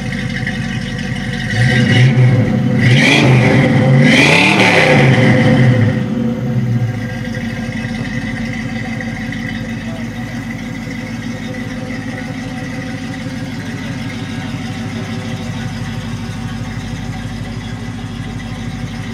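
1966 Ford Mustang's 289 V8 idling, revved up and back down a few times between about two and six seconds in, then settling back to a steady idle.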